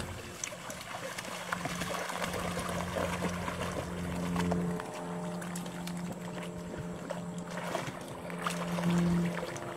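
Water splashing and sloshing in shallows as several puppies wade in and paddle. Under it run steady held musical notes that change pitch every second or two.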